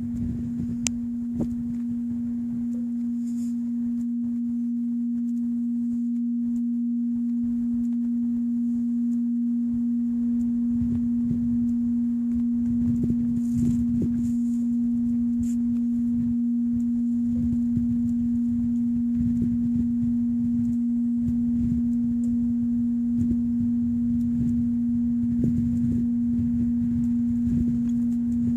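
A single steady low tone, like a pure hum, held unchanging throughout, with faint uneven rumbling noise underneath.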